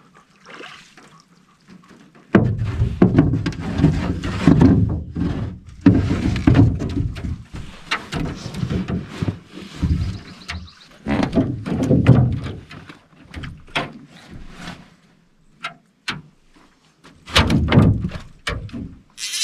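Repeated heavy thuds and knocks, coming thick from about two seconds in until about fifteen seconds, then another short run near the end.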